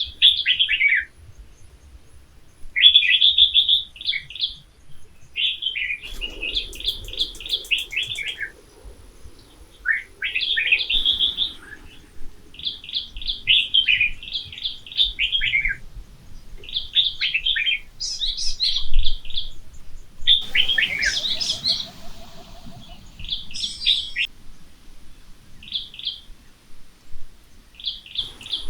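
A songbird singing over and over: quick runs of short chirps that drop in pitch, one phrase every second or two.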